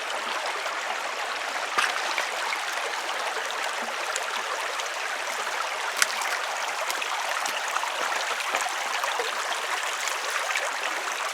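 Steady rush of flowing stream water, even throughout, with a few small clicks over it, the sharpest about halfway through.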